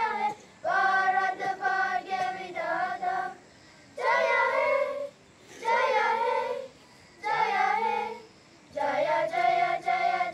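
A group of schoolchildren singing together, in held phrases separated by short pauses.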